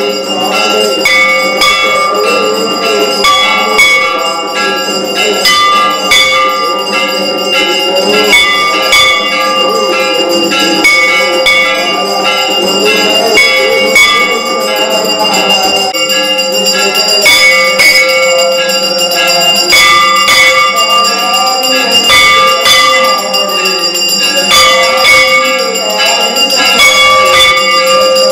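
Temple bells rung rapidly and without pause during an aarti, several pitches ringing over one another in a dense, steady clangour.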